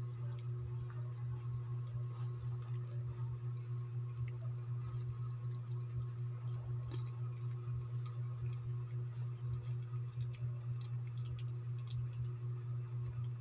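A steady low hum throughout, with faint, irregular clicks of cats chewing and nosing rice and fish in a plastic tray.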